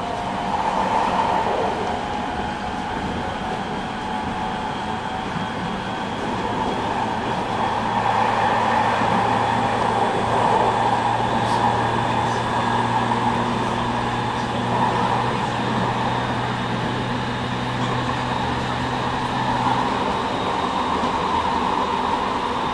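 Running sound inside the motor car of a JR East 209 series 3000 subseries electric train with Mitsubishi GTO-VVVF traction, travelling at a steady speed. The wheels and rails make a continuous roar, and a steady low hum comes in about eight seconds in and drops away near twenty seconds.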